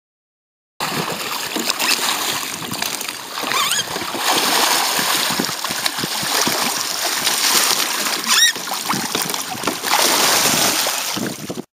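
Water splashing and rushing around a sea kayak as the paddler capsizes and rolls, heard close up from a camera on the kayak's deck. It starts abruptly about a second in and cuts off just before the end.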